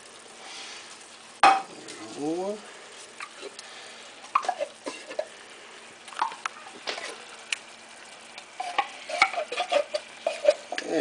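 A metal utensil scraping and clinking inside an upturned tin can, knocking thick condensed cream of mushroom soup out into a skillet, with irregular sharp clicks of metal on metal over a faint sizzle from the pan.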